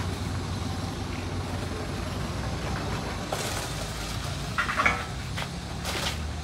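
An engine idling steadily, with a few short scrapes and knocks over it.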